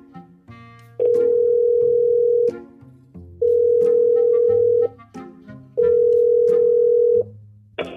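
Telephone ringback tone of an outgoing call: three long steady beeps, each about a second and a half, with about a second between them, over background music.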